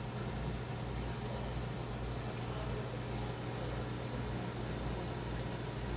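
Rain chamber running: a steady low hum from its water pump under the even hiss of falling and dripping water.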